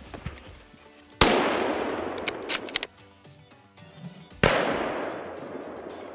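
Two hunting rifle shots about three seconds apart, each sharp crack dying away in a long echo through the woods, with a few quick clicks between them. The second shot is aimed at a wild boar running across the track.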